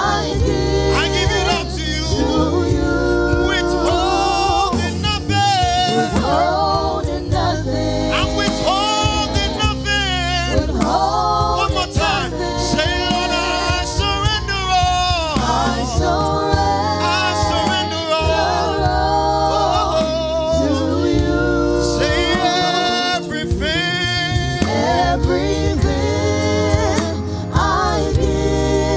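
A man singing a slow worship song into a microphone, holding long, wavering notes over a steady low instrumental accompaniment.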